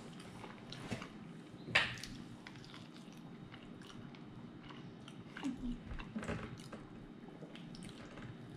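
A person biting and chewing a sauced chicken wing: quiet wet mouth sounds, with a sharper click or smack about two seconds in and a few more a little past the middle.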